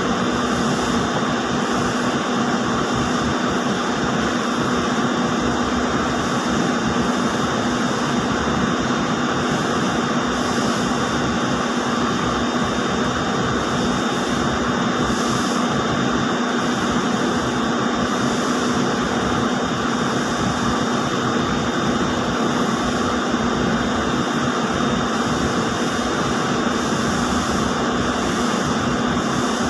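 Steady loud machinery drone of ring spinning frames running in a spinning mill, a dense even noise with a constant low hum and a thin high whine over it.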